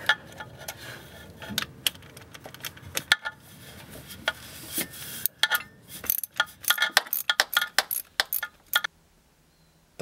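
Metal clicks and clinks of a wrench working a 12 mm bolt under the shifter, coming irregularly and growing denser about halfway through.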